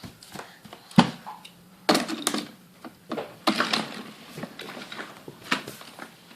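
Toy trains and plastic track pieces being handled, giving a string of irregular knocks and clicks, the sharpest about a second in.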